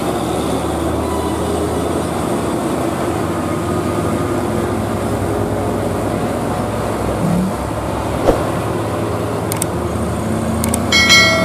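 Heavy container truck's diesel engine pulling up a steep grade: a steady low drone mixed with passing traffic. Near the end come two clicks and a short bell-like chime, the sound effect of a subscribe-button overlay.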